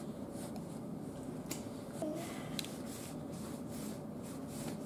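Low, steady room background noise with a faint hum, a few faint clicks and rustles, and a brief faint voice about two seconds in.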